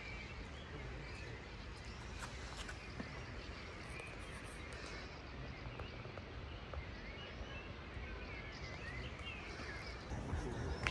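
Steady rush of a waterfall with birds chirping over it, the chirps thickest after about six seconds.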